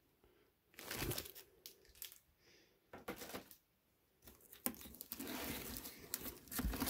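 Plastic bags around graded comic slabs crinkling and rustling against cardboard packing as the slabs are handled in a shipping box. The crinkling comes in a few short bouts, then more continuously over the last couple of seconds, with one sharp click partway through.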